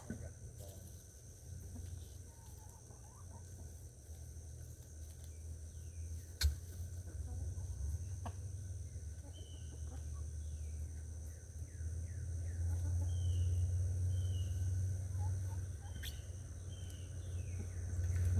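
Chickens clucking, with many short, high, falling chirps over a low steady rumble that grows louder near the end. A sharp click comes about six and a half seconds in.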